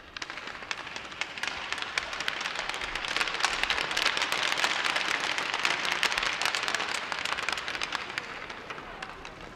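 Spectators clapping: a burst of applause that swells to a peak midway and dies away over about nine seconds.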